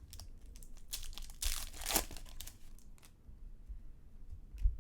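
Crinkling and tearing of a trading-card pack's wrapper, loudest about a second and a half in, with small clicks of cards being handled.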